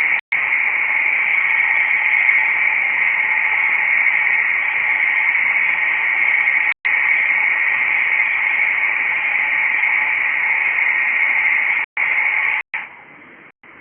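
Loud, steady static hiss, cut off for a split second a few times and then dropping to a faint hiss near the end.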